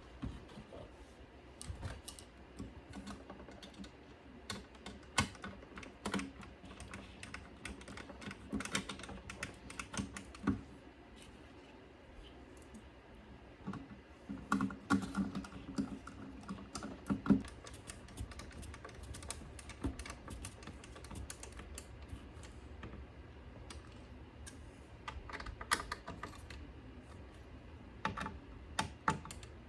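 Irregular small clicks and taps, typical of hand work on a CD receiver's plastic and metal parts, coming in clusters with pauses between. A brief low buzz runs under one busy cluster about halfway through, over a faint steady hum.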